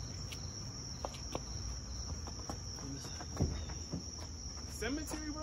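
Crickets trilling steadily in a high, unbroken note over a low outdoor hum. A few faint taps, and near the end a brief voice.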